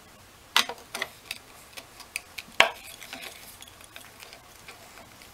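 Flat-blade screwdriver clicking and scraping in the slot of the oil screw on an Alpha One Gen 2 sterndrive as the screw is worked loose. There are a series of sharp metallic clicks, the loudest about two and a half seconds in, then fewer and fainter ones.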